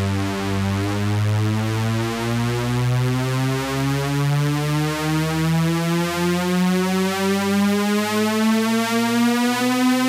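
Electronic DJ sound-check track: a buzzy synthesizer tone rich in overtones gliding slowly upward in pitch over a steady low bass tone, with a slight pulsing in loudness toward the end.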